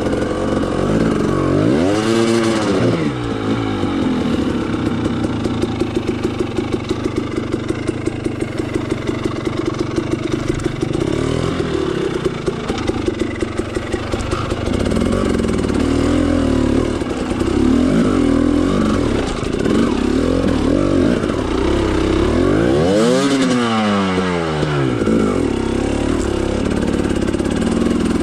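Dirt bike engine running at low revs with an even pulse while the bike climbs a rocky, washed-out creek bed. The revs rise sharply and fall back twice, about two seconds in and again later on.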